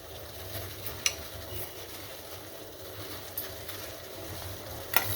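Spiced water boiling in a pot on a gas stove: a steady low rumble and hiss. A single click about a second in, and a metal spoon clinking against the pot near the end.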